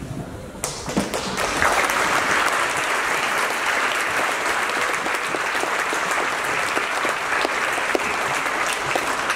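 Audience applauding, building up in the first second or so and then holding steady as a dense clatter of many hands clapping.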